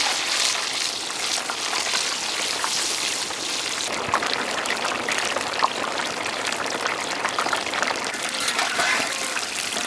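Whole marinated chicken deep-frying in hot sesame oil: a steady sizzle with scattered sharp pops and crackles.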